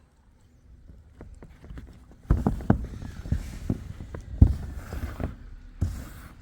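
Irregular knocks and heavy thumps with bursts of rustling noise, sparse at first and louder and busier from about two seconds in.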